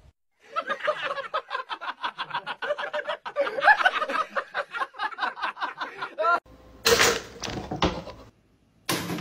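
A person laughing in rapid, pulsing bursts for about six seconds. Near the end come two louder bursts of noise.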